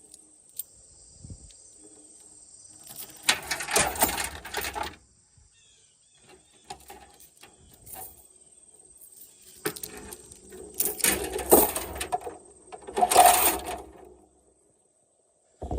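Steel tow chain being handled, rattling and clinking in three bouts of one to two seconds each.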